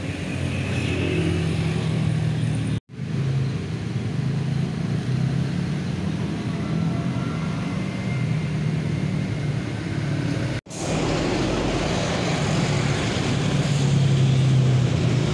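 Steady low hum of motor traffic. It cuts out sharply twice, about three seconds in and again near eleven seconds.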